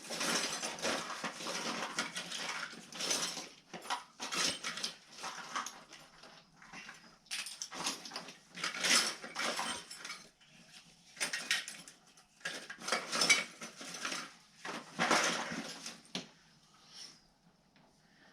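Hand tools and small metal parts being handled and set down: irregular clinks and rattles in bursts with short pauses, dying away near the end.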